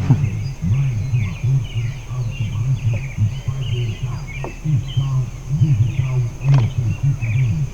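Wild birds chirping and calling over and over in short high notes, over a louder low pulsing sound that starts and stops in short blocks.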